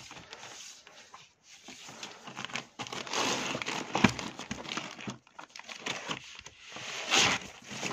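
Clear plastic outer sleeves of 12-inch vinyl records crinkling and rustling as the records are flipped through by hand, irregularly, with a few sharper clicks.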